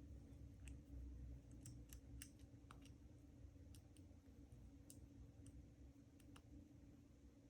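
Faint, irregular small clicks of a pick and tension tool working the pins inside a SilverLine five-pin dimple padlock.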